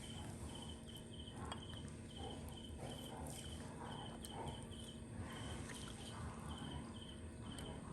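Faint insect chirping: a short high chirp at one pitch, repeating steadily in small groups several times a second, over a low background rumble with a few soft clicks.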